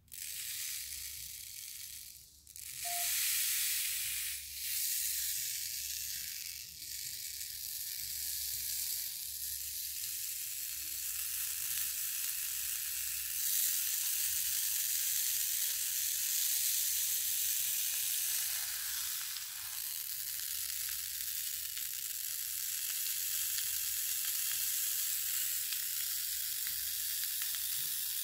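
A steady hiss of fine granules pouring from a glass bottle onto paper over a metal pan. The stream breaks off briefly a few times in the first seven seconds, then runs evenly.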